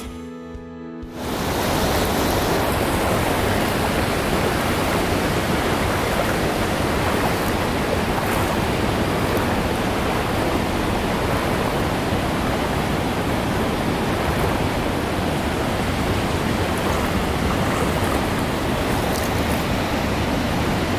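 Steady rush of a fast, clear mountain river running over rocks, starting about a second in and holding at an even level.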